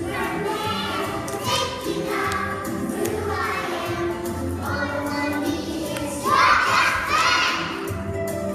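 A group of young children singing along to backing music. About six seconds in, a louder, higher burst of children's voices comes in for a second or so.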